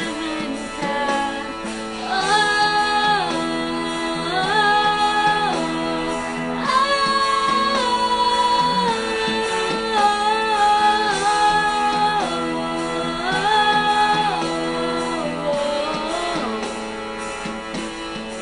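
A song: a woman singing phrases of long held notes over instrumental accompaniment.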